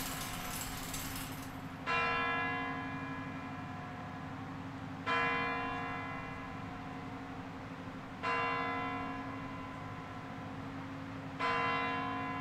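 Kremlin Spasskaya Tower clock bell striking the hour: four slow, heavy strikes about three seconds apart, each ringing on and fading into the next.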